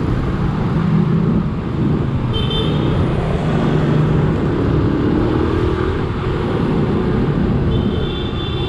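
Motorcycle engine running while riding in city traffic, with steady wind and road noise; the engine pitch climbs a little about halfway through. A brief high-pitched tone sounds about two seconds in and again near the end.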